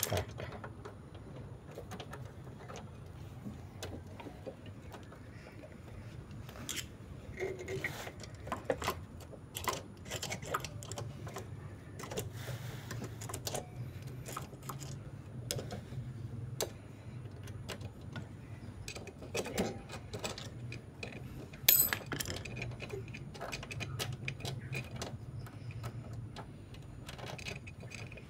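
Scattered light metallic clicks and clinks of a small motorcycle engine's timing chain and a screwdriver being worked by hand inside the open engine case, with one sharper click about three quarters through. A steady low hum runs underneath.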